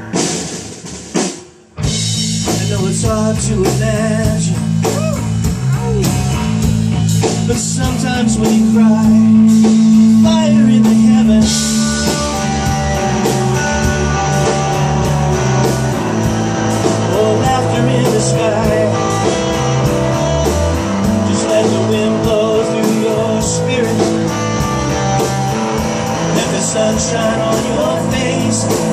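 Live rock band playing: electric guitar, electric bass and drum kit. The music drops away briefly about a second in, then the full band comes back in with a steady drum beat.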